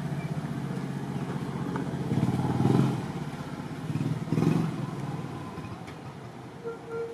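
A motor engine running with a steady low hum, swelling louder twice, about two and four and a half seconds in, as if revved or passing close. A short high tone sounds near the end.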